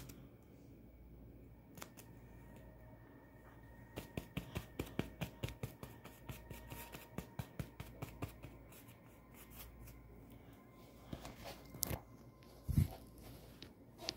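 Plastic talcum powder bottle being shaken and tapped: a quick run of sharp clicks, about five a second, for several seconds, then scattered clicks and a dull thump near the end.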